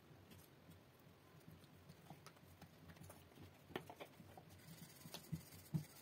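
A wooden rolling pin on a round wooden board as paratha dough is rolled out: near quiet at first, then light knocks and taps from about halfway in, coming more often toward the end.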